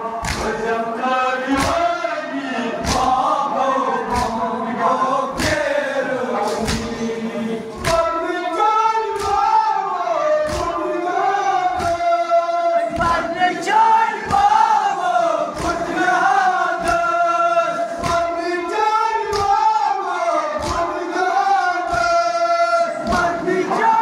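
A crowd of men chanting a Kashmiri noha (Shia mourning lament) in unison, with sharp rhythmic chest-beating (matam) strikes keeping time, about three every two seconds.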